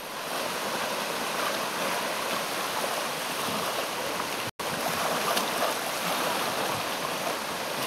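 Steady rushing noise of strong storm wind, even and unbroken, cutting out completely for an instant about halfway through.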